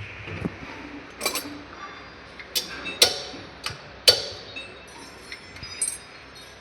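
Metal hand tools knocking and clinking against metal parts, five or six sharp strikes at uneven intervals with a short ring after each, the loudest about three and four seconds in.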